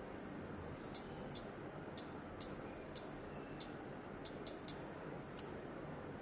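About ten short, high-pitched key-press ticks at an uneven typing pace as a password is tapped out on a CCTV tester's touchscreen keyboard, over a steady faint high hiss.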